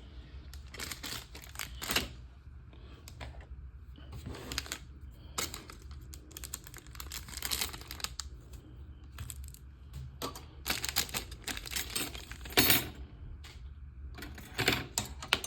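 Hard plastic model-kit parts being handled and fitted together: irregular clicks, taps and light rattles, with a steady low hum underneath.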